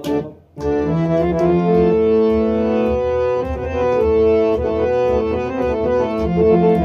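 Harmonium playing a melody of held reed notes that step from one note to the next, with a clay pot drum struck by hand keeping the beat. After a short break, both come back in about half a second in.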